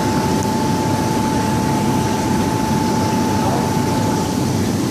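Loud, steady noise of a commercial kitchen's exhaust hood fan and gas burners running. A thin steady tone runs through it and stops near the end.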